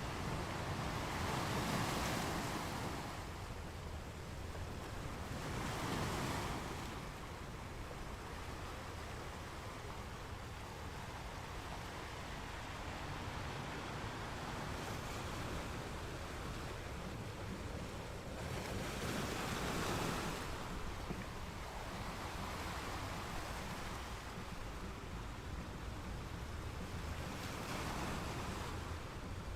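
Waves breaking on a beach: a steady wash of surf, with four louder waves surging in and fading away at uneven intervals.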